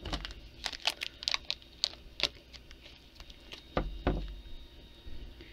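Hands kneading two-part epoxy putty: a run of small crinkly, sticky clicks, then two dull thumps about four seconds in.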